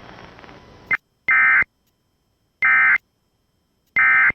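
Emergency Alert System end-of-message signal: three short, loud bursts of screechy digital data tones, about 1.3 s apart, marking the close of the alert. Before them, receiver hiss cuts off about a second in.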